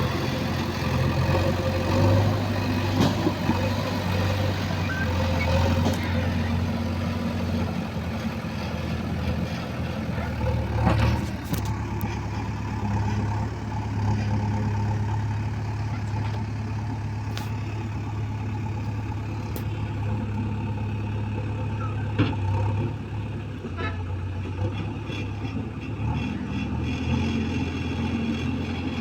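Heavy machine's engine running steadily with a low hum, its pitch shifting slightly now and then, with a few clicks and knocks.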